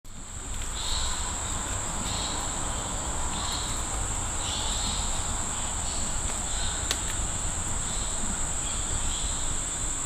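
Steady high-pitched insect drone, with a softer, lower call repeating about once a second, over a low rumble.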